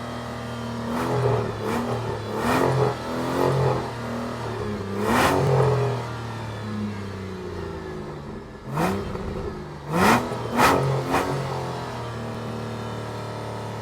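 Sports car engine idling steadily, revved in a series of short throttle blips, each a quick rise and fall in pitch; the blips come in a cluster at the start, a longer one a little past five seconds, and a sharper group about nine to eleven seconds in.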